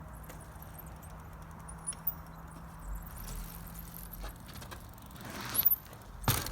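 Carrera Hellcat mountain bike rattling and clicking as it is ridden and turned, with a sharp, loud knock near the end.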